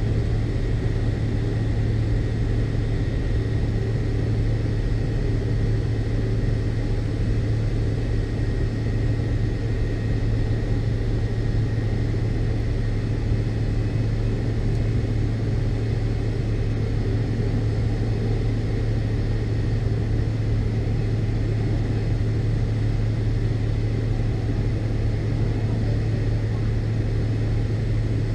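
Steady drone of a McDonnell Douglas MD-82's tail-mounted Pratt & Whitney JT8D turbofan engines heard from inside the cabin: a strong low hum that holds an even pitch and level.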